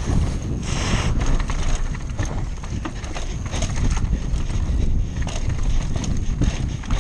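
Downhill mountain bike rattling and clattering at speed over rough ground, with the tyres rumbling and many quick knocks from the chain and frame, first on a wooden slatted ramp and then on rocky dirt. Wind buffets the helmet-camera microphone.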